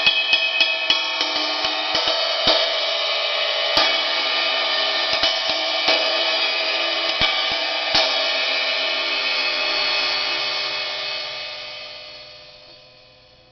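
1960s Zildjian 20-inch riveted sizzle ride cymbal struck with a wooden drumstick, the rivets adding a sizzling wash to the ring. A fast run of strokes, then single strokes about a second apart until about eight seconds in, after which the cymbal is left to ring and fades away.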